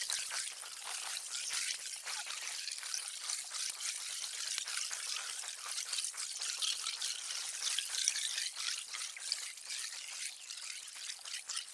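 Underwater ambience in a kelp forest: a steady, dense, fine crackling hiss, mostly high in pitch, with no low rumble.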